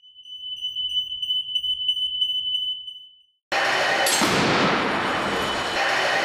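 A steady high-pitched electronic tone, like an alarm beep, holds for about three seconds and cuts off. Half a second later a loud rushing wash of noise starts abruptly, with falling hissing sweeps a little after it starts and again near the end.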